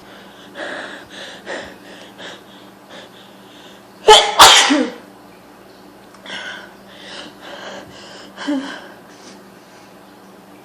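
A woman sneezing hard once from hayfever, about four seconds in, in two quick pushes. Quieter breathy sounds come before and after it.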